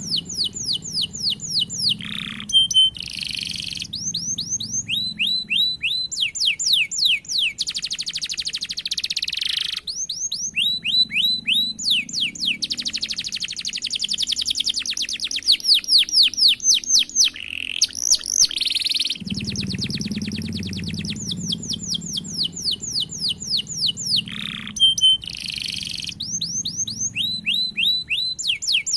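Domestic canary singing a long, fast song of rapid trills and rolls, phrase after phrase with only short breaks between them.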